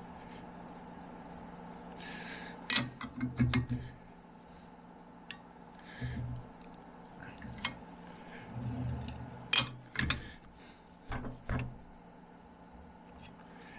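Metal tools clinking and knocking on a metal lathe while a long axle shaft is adjusted to run true, in irregular clusters of sharp clicks and a few dull thumps over a steady hum.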